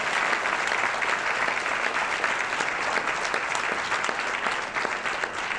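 Audience applauding, a dense stretch of many hands clapping that begins to thin out near the end.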